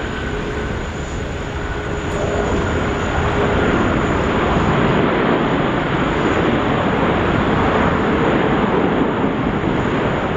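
Airbus A380 with Rolls-Royce Trent 900 engines rolling out after touchdown. A faint engine whine fades in the first few seconds while a broad jet noise swells from about two seconds in and stays loud, typical of reverse thrust on the landing roll.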